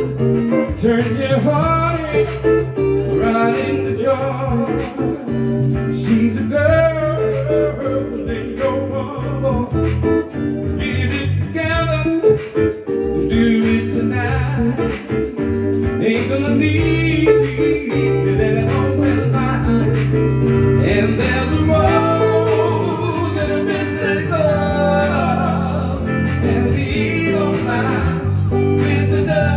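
Live trio playing an upbeat song: electronic keyboard holding chords over a steady bass line, a hollow-body electric guitar and a male singer on a microphone.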